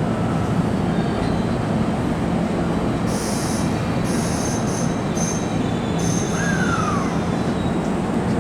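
Kintetsu electric train rolling through the station with a steady rumble, its wheels squealing in several high-pitched bursts from about three seconds in, ending with a short falling squeal near the seventh second.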